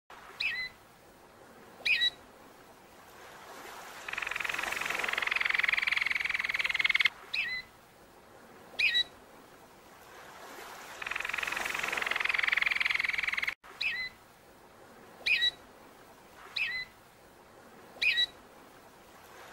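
Nature ambience: short chirping bird calls, mostly in pairs every few seconds, alternating with two long stretches of a rapid buzzing trill.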